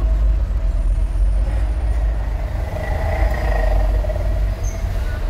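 Hino truck's diesel engine running, a steady low rumble heard from inside the cab as the truck creeps forward, with a faint higher tone coming in about halfway through.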